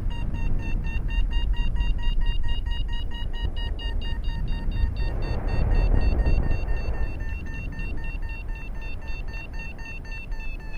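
Paragliding variometer beeping rapidly and evenly at a high, nearly constant pitch, the tone it gives while climbing in lift. Wind rumbles on the microphone underneath, louder around the middle.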